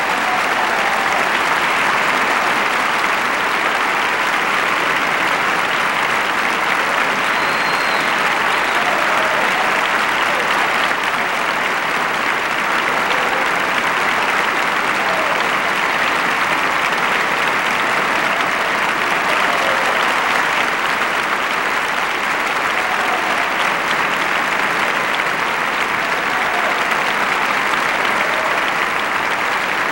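Large audience and orchestra applauding steadily: dense, sustained clapping.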